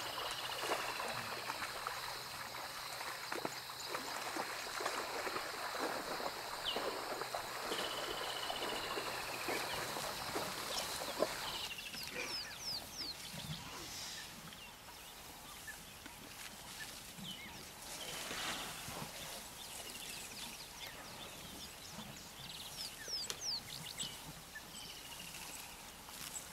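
An elephant wading through a shallow river, water splashing around its legs, with birds calling. About twelve seconds in the splashing stops and only the birdsong continues, with short repeated whistled calls.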